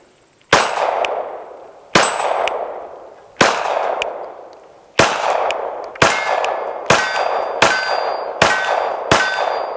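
B&T MK II 9mm pistol firing about ten shots, each followed by a long echo that dies away. The first four come about a second and a half apart, and the rest follow faster, under a second apart. A faint ringing tone hangs after the later shots.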